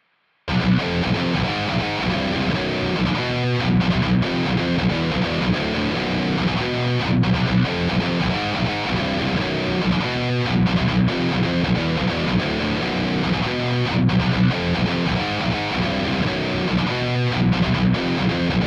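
Distorted electric guitar riff played back through an amp-simulator plugin, starting about half a second in, its phrase repeating about every three and a half seconds.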